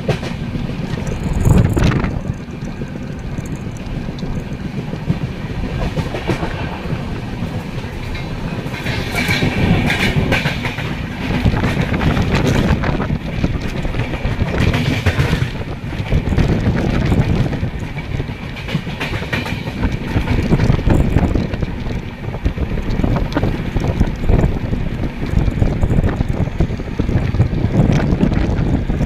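Passenger train coach running at speed, its wheels clattering over rail joints and points, heard from an open coach doorway.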